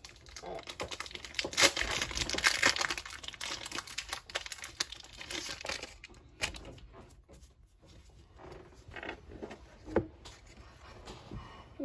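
Foil wrapper of a Pokémon Sword and Shield booster pack being crinkled and torn open, loudest about two seconds in, followed by lighter rustles and a couple of sharp clicks.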